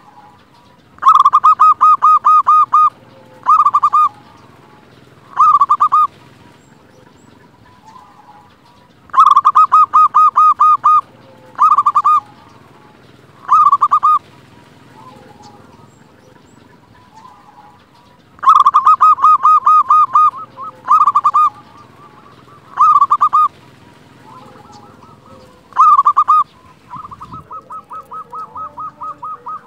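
Zebra dove (perkutut) singing its cooing song three times, each a rapid stuttering run of notes about two seconds long followed by two short notes. A fourth song starts near the end and trails into a softer, quicker run of notes.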